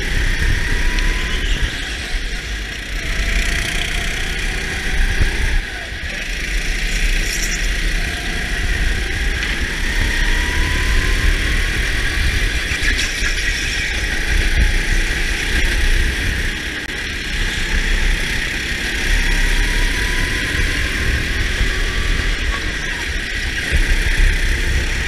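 Go-kart motor running at racing speed on a flying lap, its pitch rising again and again as the kart accelerates out of the corners, over heavy low rumble on the helmet-mounted action camera.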